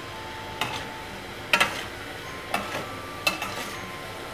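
Namak pare (fried dough snacks) sizzling in hot oil in a steel kadhai, turned over with a slotted spoon that knocks against the pan four times, about once a second.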